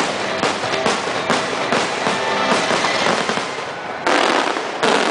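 Fireworks shells bursting in quick succession, a string of sharp bangs about two or three a second, with a dense spell of crackling about four seconds in.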